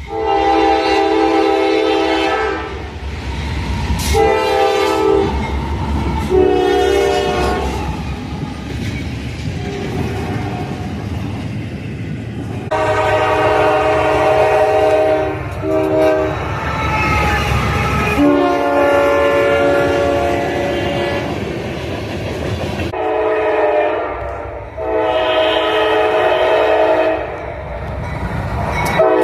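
Locomotive air horns sounding a series of long and short blasts, each a steady chord of several notes, over the low rumble of a moving train. The horn's pitch changes between groups of blasts, about a third and two-thirds of the way through, as if a different horn is sounding.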